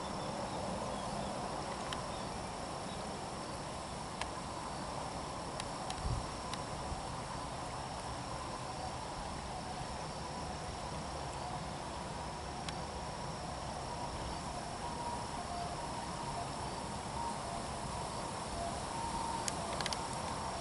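Insects, crickets by their sound, shrilling as one steady high unbroken note over a constant outdoor hiss. A few faint clicks and, in the second half, a few short faint peeps.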